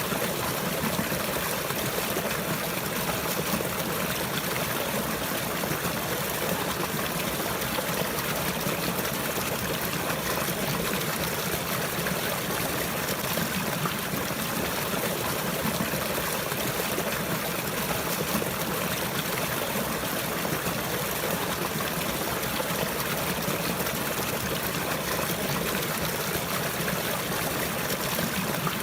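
Flowing water trickling steadily, an even, unbroken rush with no pauses or changes.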